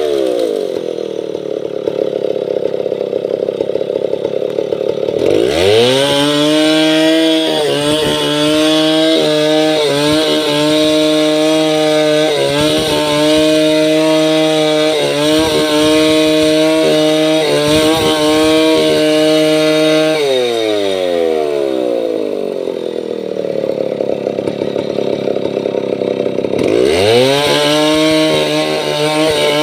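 Two-stroke chainsaw throttled up about five seconds in and held at high revs for some fifteen seconds, the pitch dipping briefly again and again as the chain bites into mahogany wood. It then falls back to idle and revs up again near the end.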